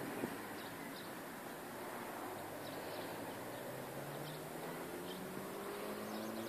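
Outdoor traffic noise with a vehicle engine whose pitch rises slowly over the second half as it accelerates, and a few faint high chirps.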